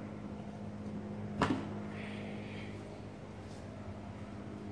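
One sharp plastic-and-metal knock about a second and a half in as the dirt bike's seat comes free of the frame, with a faint rustle just after it, over a steady low hum.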